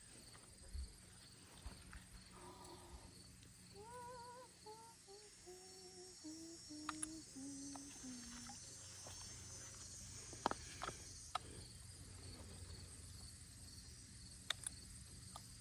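A person faintly humming a short tune that falls note by note, over a steady high chirring of insects, with a few light clicks later on.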